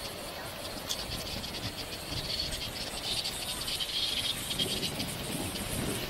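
High insect chirping with many fine rapid ticks, loudest in the middle, over the low rumble of a moving open-sided shuttle cart.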